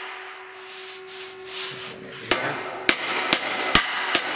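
A gloved hand rubs over a steel tube, feeling for high spots, with a faint steady hum underneath. About two seconds in, a hammer starts tapping the tube, about five light strikes at roughly two a second. This is the metal being planished back onto a rolled form inside the tube, to smooth out a dent that was first pushed out with hydraulics.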